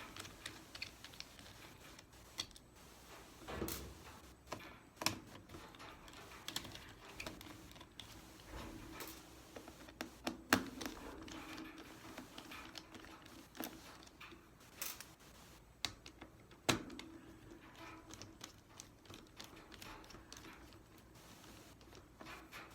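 Irregular small clicks and taps of a small Phillips screwdriver working out the screws that hold down a Chromebook motherboard.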